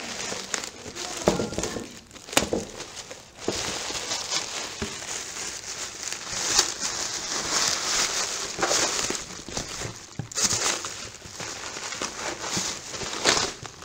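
Clear plastic packaging bag crinkling and rustling as it is handled and pulled about, on and off, with sharp crackles.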